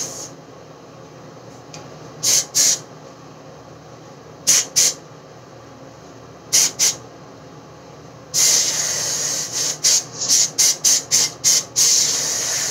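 Aerosol hairspray can sprayed in hissing bursts. There are three pairs of quick puffs a couple of seconds apart, then a longer spray of over a second, then a rapid run of about eight short puffs, and another long spray near the end.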